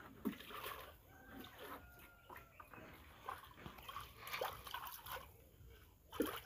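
Water poured from a plastic jerrycan, splashing near the start, with a chicken calling in the background.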